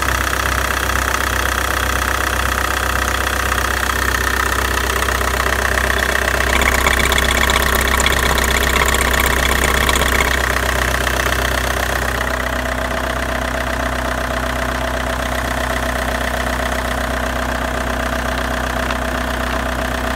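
Opel Vectra B's X20DTH 2.0 four-cylinder turbodiesel idling steadily. For several seconds in the middle, around when the oil filler cap is off, it sounds louder and brighter before settling back.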